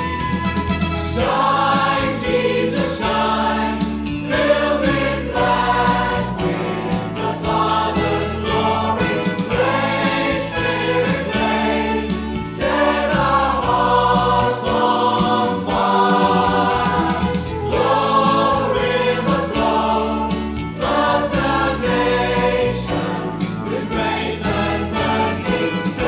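Christian worship song sung by several voices together in phrases of a few seconds, over steady instrumental backing.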